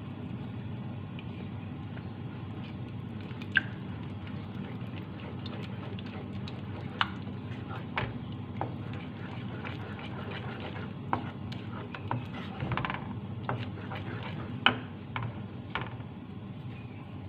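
Kitchen utensils tapping and clinking against cookware, a dozen or so sharp irregular knocks, over a steady low hum.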